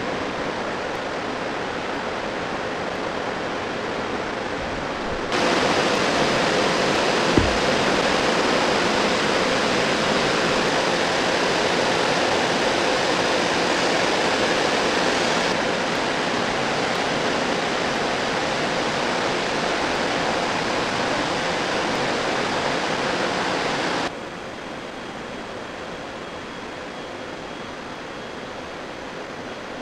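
Steady, even rushing noise, the ambience of a large hall, with no distinct events. It steps abruptly louder about five seconds in, then drops back in two steps, around the middle and about six seconds before the end. There is one sharp click a couple of seconds after the first step.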